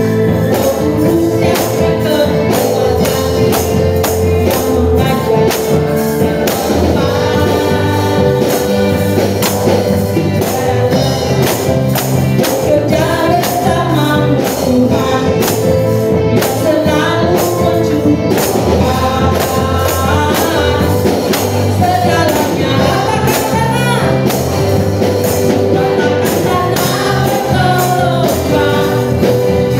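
Live gospel worship music: a band with a singer, and hand tambourines shaken and struck in a steady rhythm.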